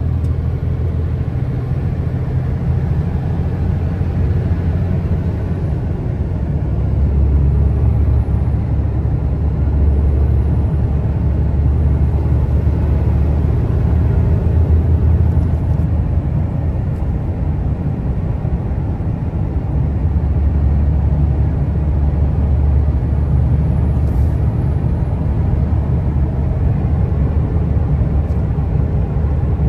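Engine drone and road noise inside a moving truck's cab: a steady low rumble that grows a little louder about seven seconds in and again around twenty seconds.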